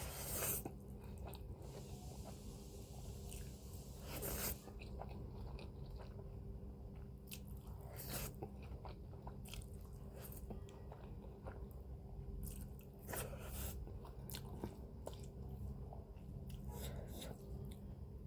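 A person eating instant noodles by hand and chewing close to the microphone, with scattered short bite and mouth sounds and a few louder bursts, over a steady low hum.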